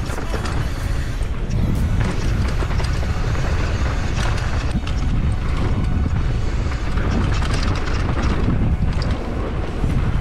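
Downhill mountain bike clattering over a rough trail: tyres hitting rocks and roots, with a steady low rumble under many quick knocks and rattles.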